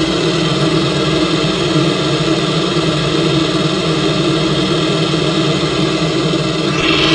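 Automatic car wash machinery running: a steady mechanical drone and rumble, with a higher hiss joining near the end.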